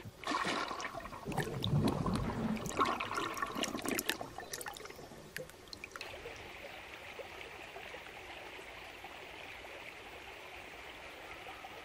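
Shallow stream water trickling and splashing, uneven and louder for the first few seconds, then settling about halfway into a steady, quieter rush of running water.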